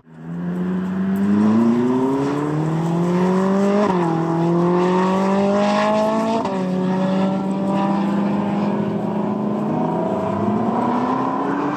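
Sports car engine accelerating hard through the gears: its pitch climbs, then drops abruptly at upshifts about four and six and a half seconds in, holds steady for a while and climbs again near the end.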